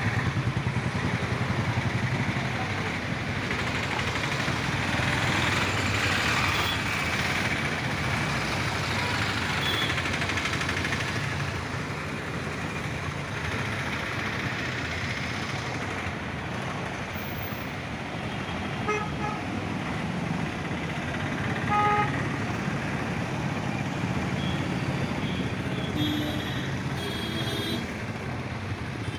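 Road roller's diesel engine running steadily while it compacts a gravel sub-base, with highway traffic noise. Short vehicle horn toots sound about two-thirds of the way through and again near the end.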